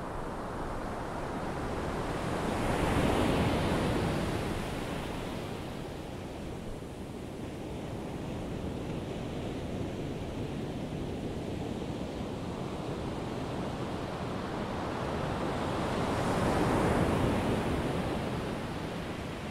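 Ocean surf washing steadily, swelling twice as waves break, a few seconds in and again near the end.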